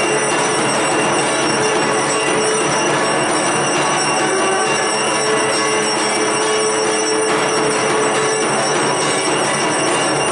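Continuous metallic clangour of puja bells and gongs during worship, with one long held note over it that stops about eight and a half seconds in.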